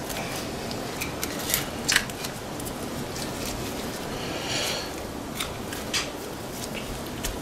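Boning knife cutting and scraping along a venison front shoulder, following the bone: scattered light clicks and ticks of the blade on bone and the table, with a brief scraping hiss about four and a half seconds in.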